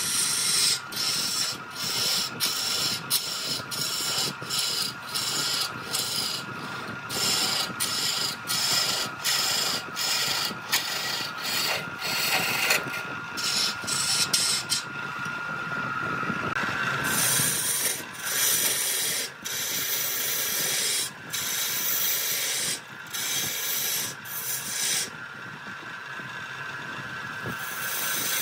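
A wood lathe running with a steady whine while a tool scrapes against the spinning wood in short repeated strokes; the scraping lets up for a few seconds about halfway through and again near the end.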